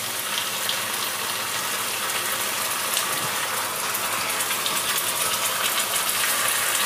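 Tomato paste sizzling in hot mustard oil with frying onion-garlic paste in a kadai: a steady hiss with fine crackling.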